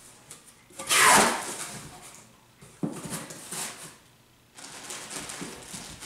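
A cardboard shipping box is opened by hand. The flaps give a loud scrape about a second in, then comes a sharp click, and near the end the plastic wrapping inside rustles as the contents are handled.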